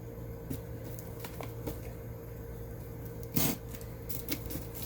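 Thick packing tape on a cardboard box being worked with a utility blade: scattered small clicks and scrapes, with one short, louder rip about three and a half seconds in. A steady low hum runs underneath.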